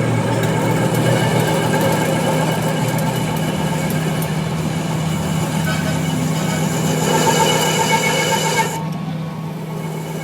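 A machine running steadily with a constant low hum; its higher, hissing layer cuts off suddenly near the end, leaving the hum.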